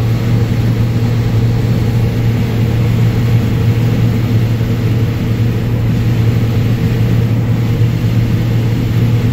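Combine harvester running steadily while harvesting corn, a constant low engine drone with no change in pitch or level.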